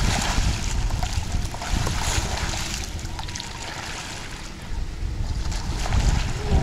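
Water splashing as a plastic whitewater kayak capsizes and is rolled back up with paddle sweeps, louder near the start and again near the end. Wind rumbles on the microphone.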